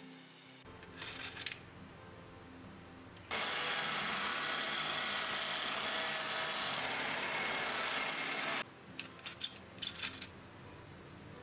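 A power drill with a twist bit boring into a softwood block: a steady, loud cutting noise starts suddenly about three seconds in and cuts off about five seconds later. A few sharp metal clicks follow as drill bits are handled in a metal bit case. Soft background music runs underneath.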